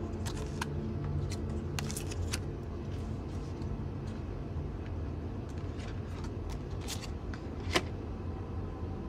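Oracle cards being picked up off a table and handled, with scattered light clicks and one sharper snap near the end. Under them runs a steady low hum.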